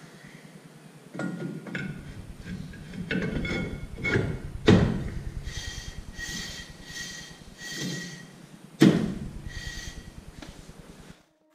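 Finned rear brake drum of a Datsun 260Z being slid over the drum brake shoes and knocked by hand onto the hub: a series of dull metal knocks, the two loudest a little before halfway and about three-quarters through, with the drum ringing briefly after the taps in between.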